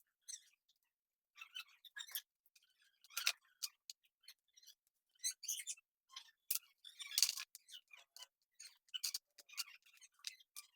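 Packaging being handled and opened: irregular crinkling, rustling and scraping, with a denser crinkly stretch about seven seconds in.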